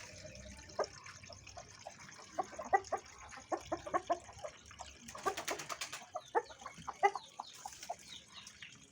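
Aseel chickens clucking, with short calls coming one after another at irregular spacing and a brief run of quick clicks about five seconds in.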